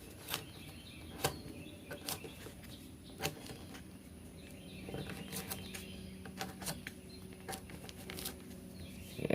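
TOPS Bull Trout fixed-blade knife cutting through material, with faint, irregular crisp clicks and rustles.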